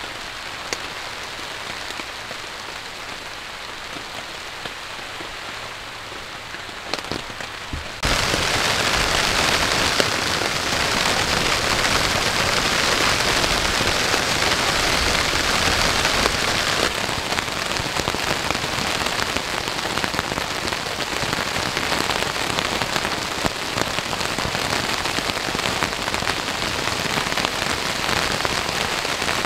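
Heavy rain falling steadily, with a few sharper drops standing out; the rain jumps suddenly louder about eight seconds in.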